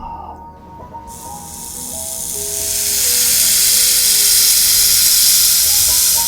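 A loud, steady hiss that swells in over about two seconds and then holds, over background music with long held notes.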